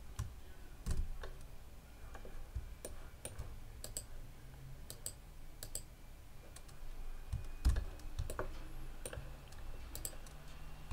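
Irregular clicks of a computer mouse and keyboard, a few a second, over a faint low hum. There is one heavier knock about three-quarters of the way through.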